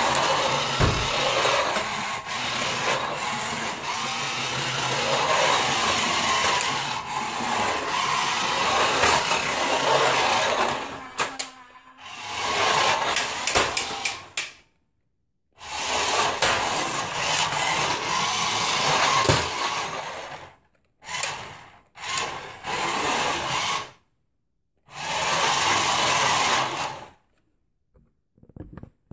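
Small electric motors and gears of a toy RC car whirring as it drives and moves. A long run of about eleven seconds, then a series of shorter bursts that stop abruptly, with brief silences between them.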